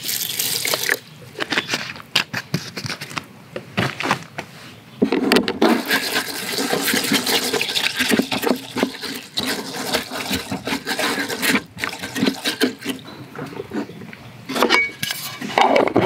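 Water is poured onto uncooked rice in a metal mess tin, then the rice is swished and rubbed by hand in the water to wash it, with grains and water sloshing against the tin. Near the end the lid is pressed on with a few sharp knocks.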